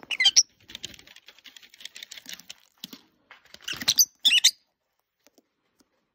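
Lovebirds giving quick high chirps at the start and again about four seconds in, with rapid scratchy crackling between as they pick at shredded cardboard. It falls quiet after the second burst of chirps.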